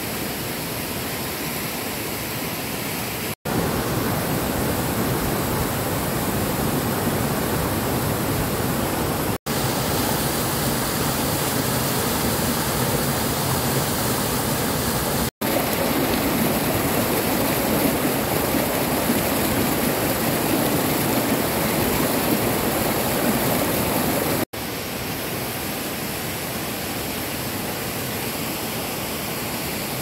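Waterfall and the stream below it rushing steadily over rocks. The sound of the water drops out for a split second four times where clips are joined, and is louder through the middle stretch.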